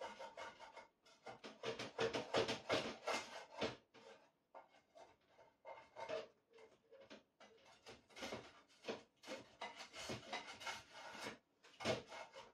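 Kitchen work at the counter: quick runs of scraping and rubbing strokes, mixed with light knocks and clatter of utensils and dishes, with brief pauses about a second in, around four to five seconds in, and just before the end.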